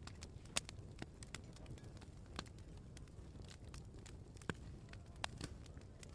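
Open wood fire crackling in a fireplace: a handful of sharp, irregular pops and snaps over a low steady rumble of burning.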